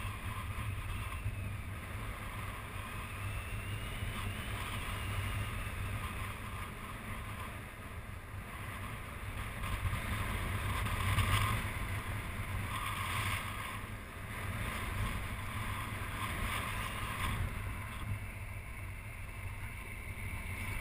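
Airflow buffeting the microphone of a camera on a paraglider in flight: a steady low rush that swells and eases a little.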